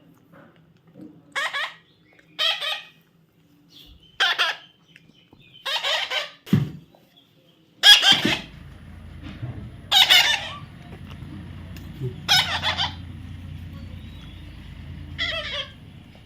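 A baby parrot giving a run of short, harsh squawks, about nine calls one to two seconds apart. A faint steady low hum starts about halfway through.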